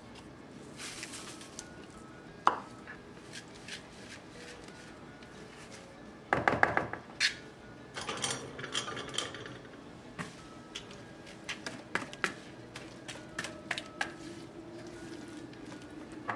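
Rolled oats tipped and scraped with a silicone spatula out of a small bowl into batter in a mixing bowl. There is a loud clatter of knocks about six seconds in, followed by scattered clicks and taps of the spatula and whisk against the bowl as the oats are stirred in.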